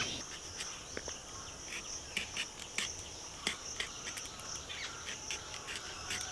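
Small knife blade scraping and cutting the spiny skin off a spiny gourd (kakrol) in short, irregular strokes, over a steady high insect chirring.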